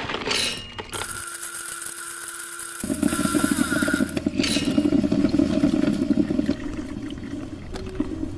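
Electric coffee grinder running: a steady motor hum, then a louder, rougher grinding of whole coffee beans from about three seconds in, easing near the end.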